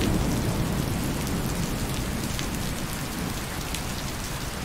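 Steady rain falling on a wet hard surface, with a low rumble underneath that is strongest at the start. It slowly gets quieter.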